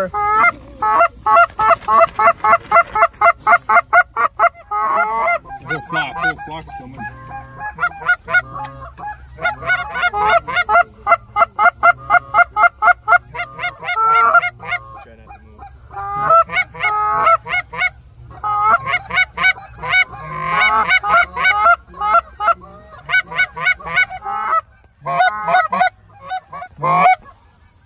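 Goose calling: long runs of short, rapid honking clucks, about five a second, with brief breaks between runs. This is the aggressive calling used to pull Canada geese in to decoys.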